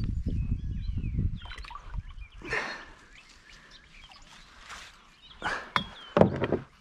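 Water splashing in a few short bursts as a hooked flathead catfish is hauled up to the side of a kayak on a bank pole line, with birds chirping faintly and a low rumble over the first two seconds.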